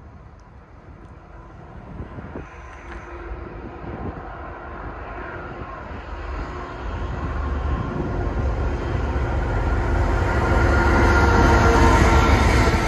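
Diesel freight train approaching, led by a GE ET44AH locomotive with an EMD GP40X second: the locomotive engines and rolling wheels grow steadily louder until the lead unit comes alongside near the end.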